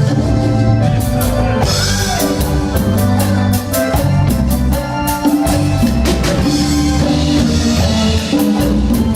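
Cumbia band playing an instrumental passage with no vocals: drum kit and percussion keep an even beat under a strong bass line and sustained melodic notes.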